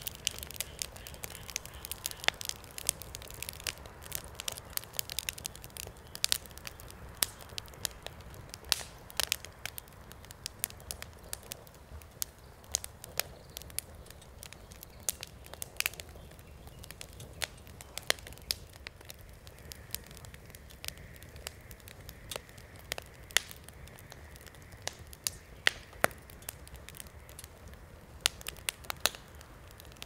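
Wood bonfire crackling, with many sharp pops and snaps at irregular intervals over a steady low rumble of the flames.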